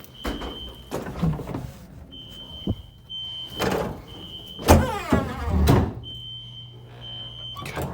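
Fire alarm horn sounding a high steady tone in groups of three beeps with a pause between groups: the temporal-three evacuation pattern. Heavy thumps and a creak break in about halfway through.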